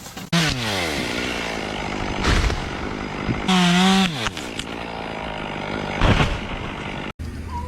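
Chainsaw engine revving high and dropping back toward idle twice, with a loud crash or thump about two seconds in and another about six seconds in.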